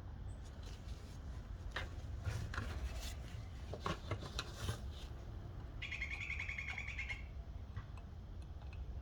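A bird's rapid chirping trill lasting about a second, starting about six seconds in, among faint scattered clicks.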